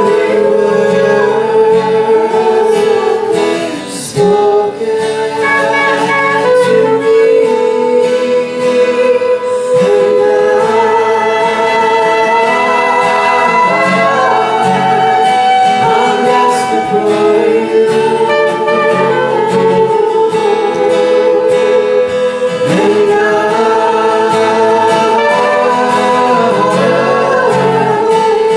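Live worship song: a woman sings the lead vocal through a microphone, with backing vocals and acoustic guitar accompaniment, continuous throughout.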